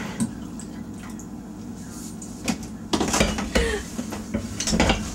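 Glassware knocking and clinking on a kitchen counter: a glass coffee carafe and a glass bowl being handled and set down, several sharp knocks with a cluster about three seconds in.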